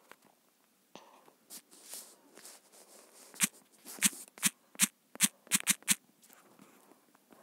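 A quick run of about eight sharp, short clicks or taps between about three and a half and six seconds in, with fainter scraping and tapping before them.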